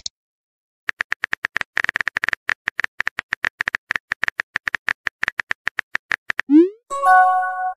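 Phone keyboard typing clicks, several a second, as a text message is typed out. About six and a half seconds in, a quick rising swoosh and then a short electronic tone: the message-sent sound.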